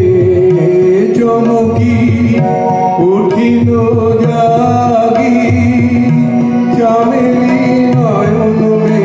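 Live harmonium and keyboard music with a tabla-style drum beat.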